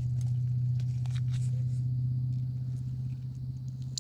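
A steady low hum that eases off in the last second or so, over scattered short clicks and squelches from a hand squeezing a lump of wet natural clay.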